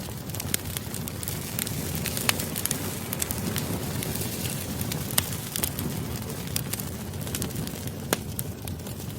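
Wood fire crackling: a steady low noise of burning with sharp pops scattered through it, a few each second.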